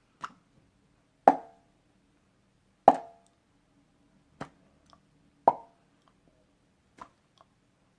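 Finger-flick mouth pops: a finger hooked inside a puffed-out cheek is flicked out of the corner of the mouth, making a short hollow pop. About six pops come at uneven intervals of a second or so, some louder than others.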